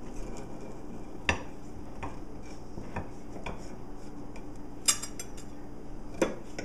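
Large kitchen knife cutting a slice from a loaf on a ceramic plate, the blade knocking and clinking against the plate several times, the sharpest, ringing clink about five seconds in.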